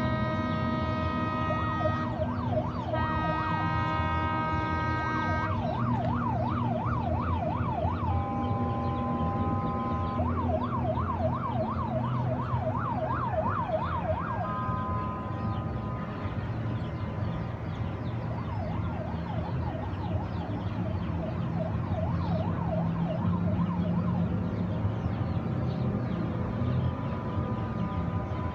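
Boats' horns and electronic sirens sounding over a low engine drone. Steady horn blasts of a couple of seconds alternate with a siren warbling rapidly up and down several times a second, and the warble grows fainter in the second half.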